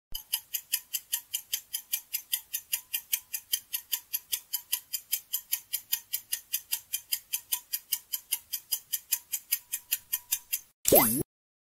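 Quiz countdown timer sound effect: clock ticking, about four to five ticks a second. It stops shortly before the end, and a short, loud sound effect with a sweeping pitch follows.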